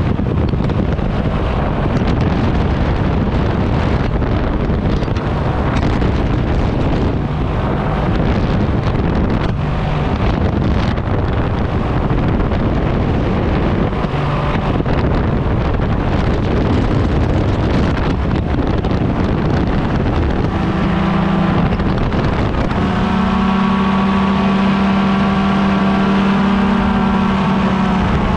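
Paramotor engine and propeller running in flight, with strong wind rushing over the microphone. About twenty seconds in, the engine's steady drone comes through more clearly above the wind.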